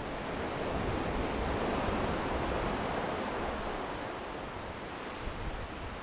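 Surf washing against a rocky shore: one wave's rush swells and then eases away, with wind buffeting the microphone underneath.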